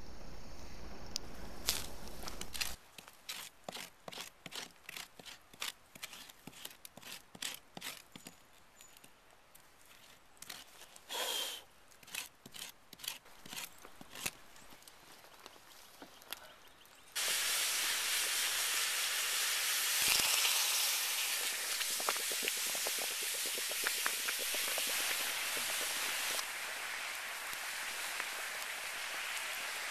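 Hot rocks in water in a burnt-out log bowl, sizzling and hissing as the water boils; the hiss starts suddenly past the middle and runs steadily on. Before it comes a run of sharp clicks and crackles.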